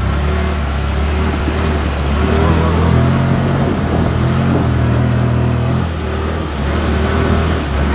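Off-road vehicle's engine running hard while it spins donuts on dirt, its low drone swelling and easing with the throttle, under a steady rushing noise.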